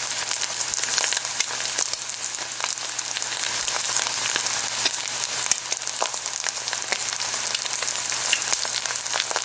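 Egg frying in hot oil in a pan: a steady sizzle scattered with sharp crackles and pops.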